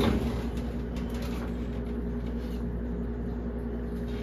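Steady hum of a running kitchen appliance with several low steady tones, with a few faint light clicks in the first second and a half.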